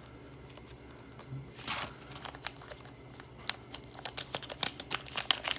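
Plastic packaging crinkling and crackling as it is handled, sparse at first and then coming in quick, dense crackles over the last two seconds.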